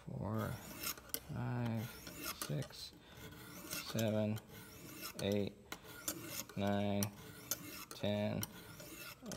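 Lansky guided hone being drawn stroke after stroke along a clamped steel knife edge, a dry rasping scrape, while sharpening the second side at the 20-degree angle. Short low voiced sounds come about once a second over it, a man counting the strokes under his breath.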